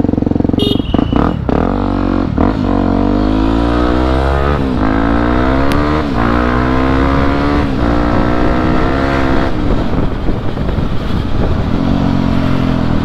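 Exhaust of a Yamaha WR250 supermoto's single-cylinder four-stroke engine with the dB killer baffle removed, giving a freer, more open note. The bike pulls away and accelerates through the gears: the note climbs, then drops back at each of several upshifts, and eases to a steadier, lower cruise near the end.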